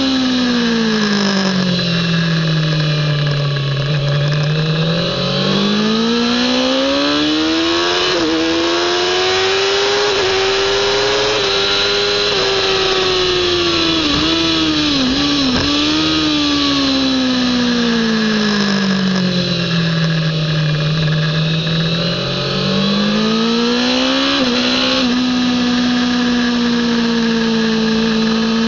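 Kawasaki ZX-10R's inline-four engine at racing revs: the engine note falls to a low point, climbs steadily with brief dips at gear changes, drops again under braking and downshifts, then climbs once more, over steady wind rush.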